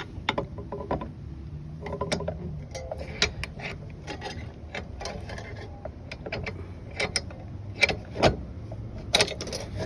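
Irregular metallic clicks and clinks of fittings and tools being handled and threaded onto a gas regulator, with a few louder knocks near the end.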